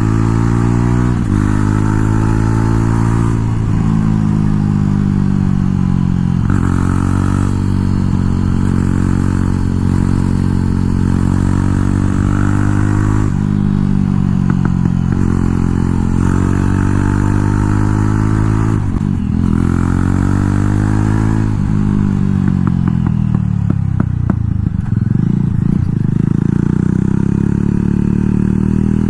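Jawa Perak's 334 cc single-cylinder engine through a loud aftermarket exhaust, pulling up through the gears: the pitch climbs and drops back at each shift, several times over. Near the end it slows with falling pitch and a run of crackles and pops from the exhaust on the overrun.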